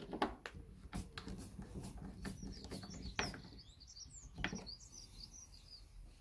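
Sharp clicks and knocks from a newly made wooden-handled hex-drive screwdriver being handled and tried out, with small birds chirping briefly in the middle.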